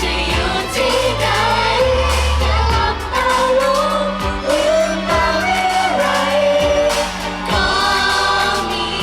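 Thai pop song, with several voices singing a melody together over backing music and a steady beat.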